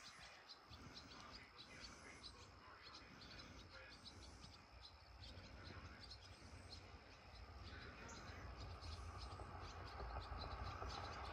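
Faint outdoor chorus of chirping insects, with quick repeated high ticks and a thin steady high tone. A low rumble builds up under it toward the end.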